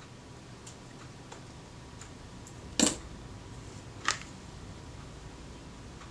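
Small metal camera parts and a jeweller's screwdriver being handled: two sharp clicks a little over a second apart, the first the louder, with a few faint ticks. A low steady hum sits underneath.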